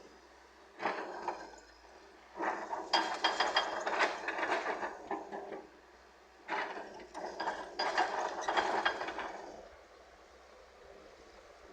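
Earthmoving machinery at work, giving rattling, ratchet-like mechanical clatter in three bursts: a short one about a second in, then two longer ones of about three seconds each.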